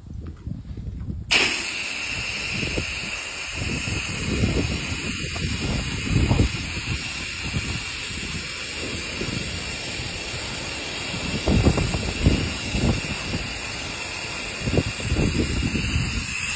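Pressure washer spraying soft-wash cleaner onto house siding: a steady high hiss that starts about a second in and cuts off near the end. Wind gusts buffet the microphone throughout.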